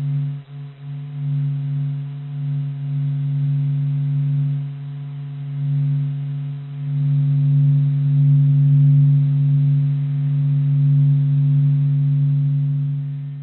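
A steady, low, electronic "space sound" drone: one humming tone with faint higher overtones. It swells and ebbs slowly, with a brief dip about half a second in, and begins to fade near the end.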